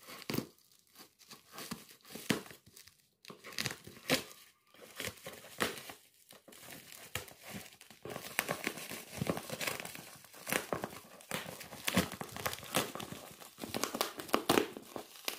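Black plastic and bubble-wrap parcel packaging being torn open by hand: irregular crinkling and tearing, busier from about halfway through.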